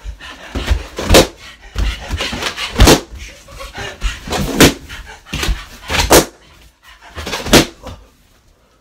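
A man's body thudding down hard on a cushioned floor over and over as he tries to burst balloons by sitting on them, a sharp impact about every second and a half. Heavy panting runs between the impacts, and both die away near the end.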